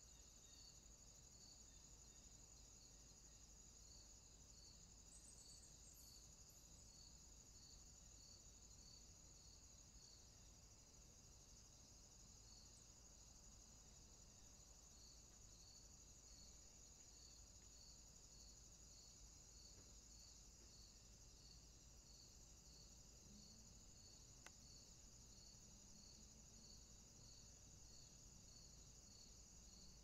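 Near silence: faint steady high hiss with a faint, regular high chirp about twice a second, and one faint click about 24 seconds in.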